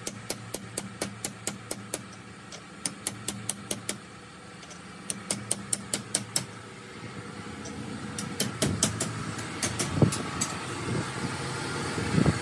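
Runs of quick light hammer taps, about four a second with short pauses between runs: a hammer striking a steel socket used as a drift to drive a seal onto a Swaraj 744 tractor gearbox shaft. A steady engine-like hum underneath grows louder over the last few seconds.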